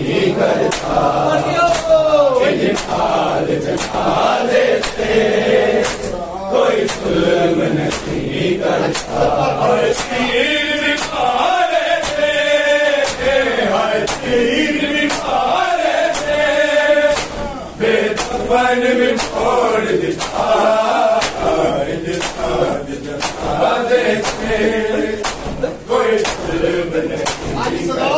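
Group of men chanting a Punjabi Shia noha (mourning lament) in unison, with steady, evenly spaced slaps of hands striking bare chests (matam) keeping the beat.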